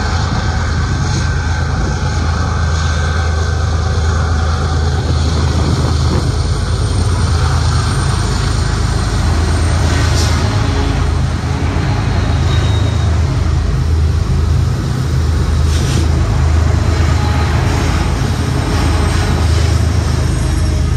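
Freight train of loaded open hopper cars rolling past close by: a steady, loud rumble of wheels on rail.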